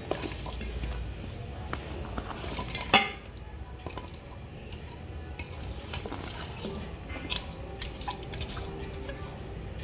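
Sliced onions and tomatoes scooped by hand out of a steel bowl and dropped into an aluminium cooking pot, with scattered light clinks of the metal vessels and one loud, ringing metallic clink about three seconds in.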